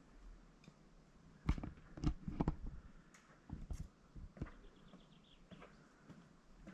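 Footsteps and camera handling: a few soft, irregular thumps and scuffs, loudest around two seconds in. A faint quick run of high ticks comes about midway.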